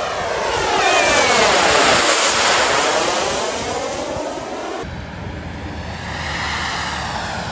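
Radio-controlled J-10 model jet flying a low pass overhead: a loud engine whine that peaks about two seconds in, its tone sweeping as it goes by, then falls away. The sound changes abruptly about two-thirds of the way through, then builds again.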